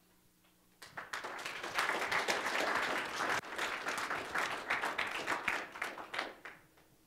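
Audience applauding: dense clapping starts about a second in, holds, then thins out and stops about a second before the end.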